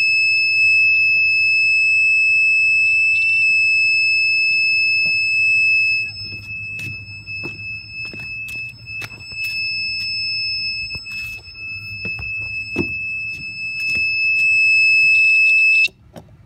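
A mini electronic siren sounding its alert as one continuous, steady, very loud and high-pitched tone. About six seconds in, it falls in level and wavers for several seconds. It comes back to full strength, then cuts off suddenly near the end.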